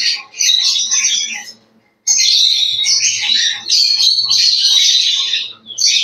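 A flock of lovebirds chattering and squawking, a dense, shrill, high-pitched racket with a brief break about two seconds in.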